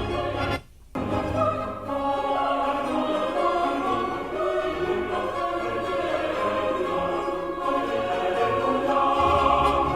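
Orchestral music with a choir singing, played back through powered bookshelf speakers. The sound drops out briefly just under a second in, then the music resumes.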